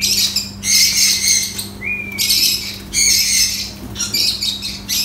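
A pet parrot screeching harshly in alarm while being handled, about five loud squawks, one roughly every second.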